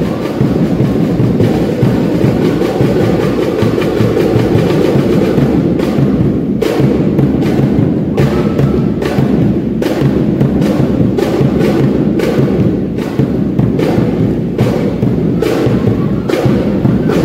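Loud cheer-dance music with a heavy drum beat, the beats coming evenly about one and a half to two times a second from about six seconds in.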